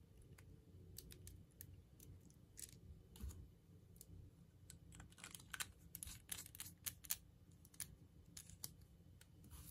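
Faint small plastic clicks and taps from handling a Bic 4-colour ballpoint pen while fitting new refills and putting the barrel back together, coming thickest a little past the middle.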